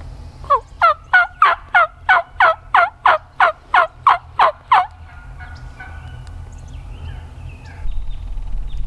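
Turkey yelping: a fast, even run of about fourteen loud yelps, each note falling sharply in pitch, lasting about four seconds and then stopping. Softer scattered sounds and a low rumble follow.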